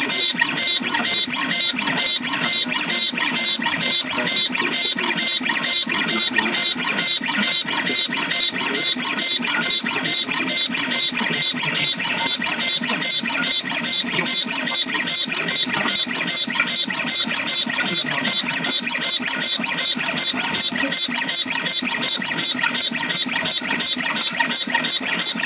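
Engraving machine cutting a picture or message into a stainless steel necklace pendant, its head working back and forth in an even rhythm of about three passes a second, with a high-pitched whine on each pass.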